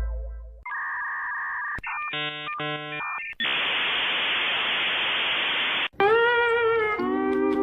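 A run of separate sound effects: a deep boom fading out, a steady electronic beep, a short stuttering electronic jingle, then about two and a half seconds of static hiss that cuts off sharply, followed by a wavering tone that settles into a held chord.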